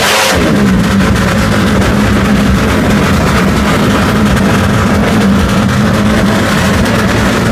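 Suzuki Satria FU motorcycle's single-cylinder four-stroke engine, bored out to 200 cc for drag racing, running loudly with its pitch held steady.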